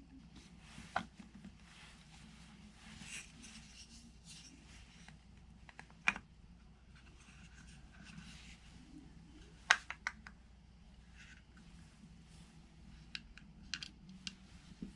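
Wooden grip panels being handled and fitted onto a Beretta M1951 pistol's steel frame: scattered light clicks and taps, the sharpest a pair about ten seconds in, with faint scraping and rubbing between.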